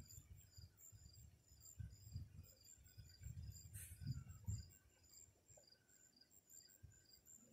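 Faint night insects chirping in a steady rhythm of about two chirps a second, over intermittent low rumbles, with one brief hiss about four seconds in.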